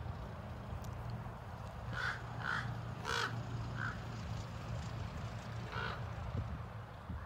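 Crows cawing from the trees, about five harsh caws in a loose series starting about two seconds in, with the last one near the end, over a steady low rumble.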